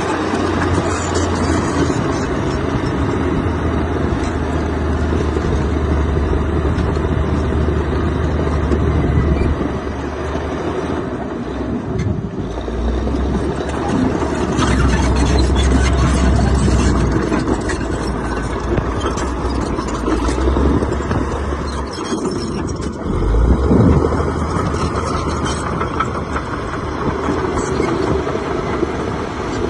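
Heavy diesel engine of earthmoving machinery running under varying load, a steady low drone that rises and falls. It dips briefly about twelve seconds in and swells about twenty-four seconds in.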